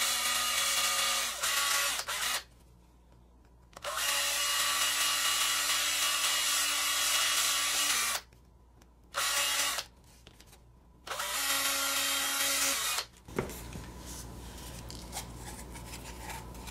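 Cordless drill with a 5/32-inch bit drilling holes through a plastic syringe barrel. It runs at a steady pitch in about five separate runs, the longest about four seconds, and stops for good about 13 seconds in.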